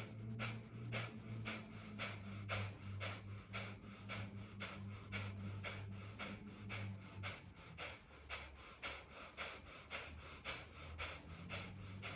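Kapalabhati (breath of fire) breathing: rapid, forceful exhalations through the nose in a steady rhythm of about three sharp puffs a second, each followed by a passive inhale.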